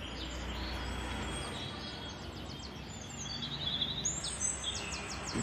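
Steady outdoor background noise, with small birds chirping in quick high-pitched series from about a second and a half in.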